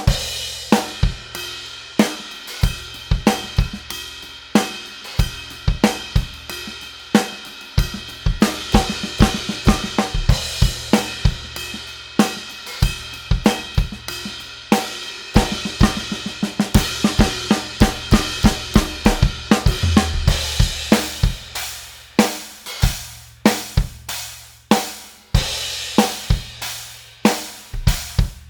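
Drum kit played with a set of Meinl cymbals: a steady groove of kick, snare and hi-hat under a sustained wash of ride and crash cymbals, with fast runs of strokes in places.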